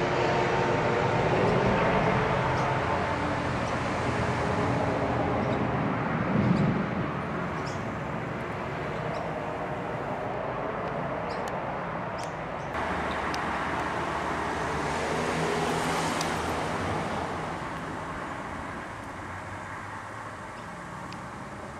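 Steady road traffic noise, swelling and fading as vehicles pass.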